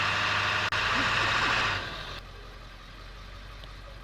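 Truck engine running hard while pulling a rope tied to a hung-up tree, easing off sharply about two seconds in to a quieter low hum.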